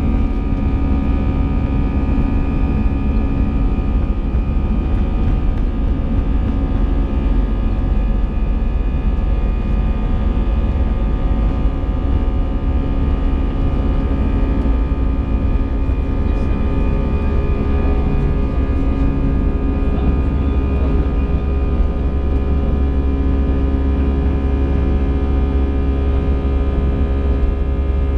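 Airbus A320 cabin noise: a steady deep rumble of the jet engines and rushing air, with several steady whining tones over it.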